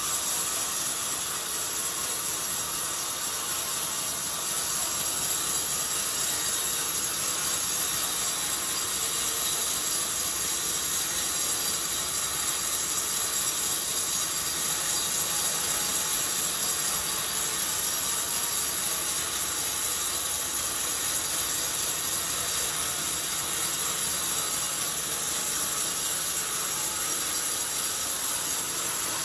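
Sawmill saw cutting lengthwise through an old, very hard coconut-palm log as the log is fed past the blade: a steady, unbroken hissing cut with no pauses.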